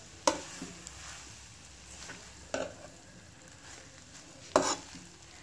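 Metal slotted spatula stirring and tossing spaghetti in a hot wok over a faint sizzle. It knocks sharply against the pan three times, about two seconds apart.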